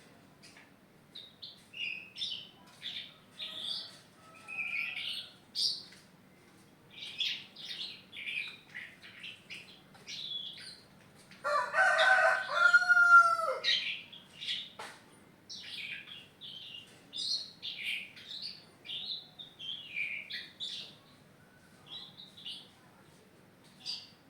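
A young caged songbird chirping and singing in short, repeated bursts of high notes. About halfway through comes a louder, lower crowing call lasting about two seconds, ending in a falling note.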